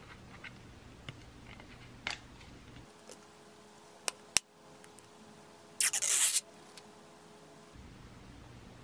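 A thin clear plastic phone case is pressed onto an iPhone. There are a few light taps at first, then two sharp clicks about four seconds in as the case edges snap over the phone. A brief scraping rustle of about half a second follows.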